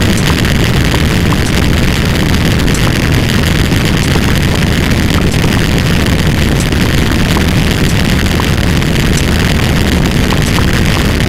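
A loud, steady rumbling roar of noise, engine-like, with faint clicks scattered through it.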